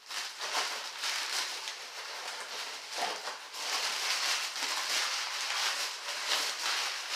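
Crumpled packing paper crinkling and rustling as it is pulled out of a cardboard box, a steady crackly rustle made of many small crackles.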